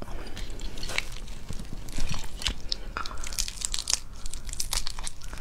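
Shell of a large red shrimp (red devil shrimp) crackling and snapping as fingers pull it apart and peel it, in irregular crackles with a louder snap about two seconds in.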